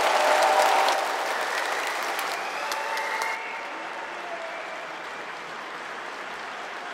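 Audience applauding in a concert hall after the performance. The applause is loudest at first and drops suddenly, sounding duller, about three seconds in.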